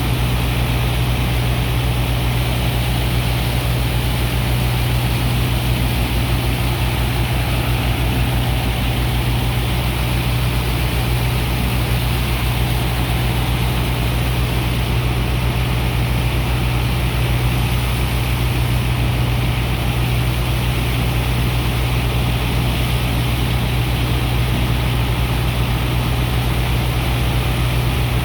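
Sand dredger's engine and pump machinery running steadily while unloading sand: a constant deep hum with an even hiss over it.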